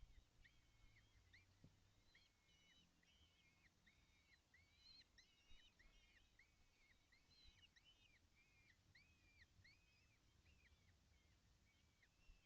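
Faint, steady series of short arched calls, about two a second and sometimes overlapping, from several young kestrels.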